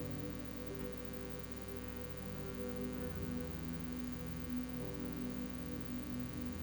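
Soft background music of long held notes, shifting to new pitches every second or two, over a steady low hum.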